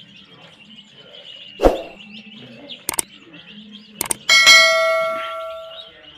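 Baby chicks peeping steadily throughout, with a single loud knock about a second and a half in. Near the middle come a few sharp clicks, then a bell ding from a subscribe-button animation that rings out and fades over about a second and a half.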